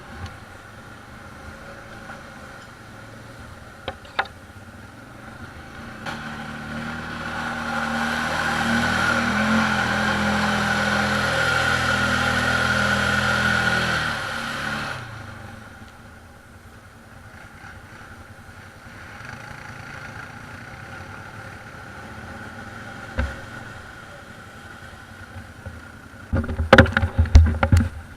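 ATV engine revving under load: it rises over a few seconds, holds high, then drops back about halfway through, leaving a quieter steady running. Near the end come loud irregular low thumps and rattling.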